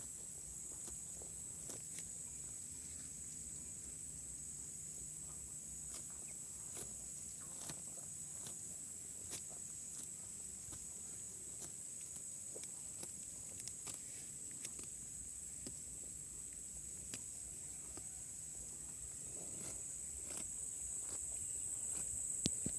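Cows grazing: irregular crisp crunches and rips of grass being torn off and chewed. Behind them runs a steady high-pitched chorus of crickets or other insects.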